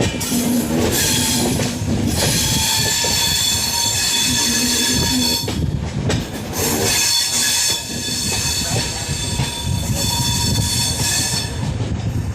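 Railway train running close by: steel wheels squealing on the rails in a steady high whine over a heavy rumble, easing briefly a few times.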